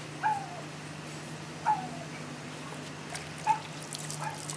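A dog whimpering: four short whines that slide down in pitch, spaced one to two seconds apart, over a steady low hum.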